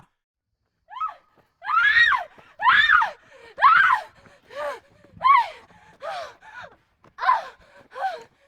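A series of about ten short, high-pitched human cries, each rising and then falling in pitch, coming roughly once a second after about a second of silence; a horror sound-effect layer of frightened gasping cries.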